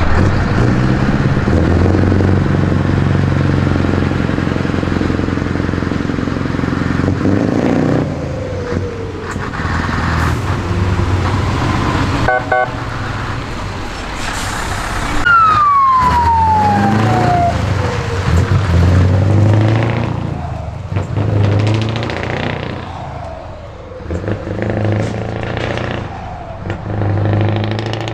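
Scania Torpedo long-nose truck's diesel engine running and pulling away with a heavy lowboy trailer, its low note rising and falling several times through the gears. A single high whistle slides down in pitch a little past the middle.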